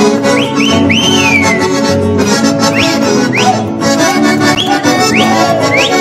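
Accordion-led traditional dance music playing, with men whistling through their fingers over it: about eight short rising whistles, including one longer one about a second in that rises and then slides down.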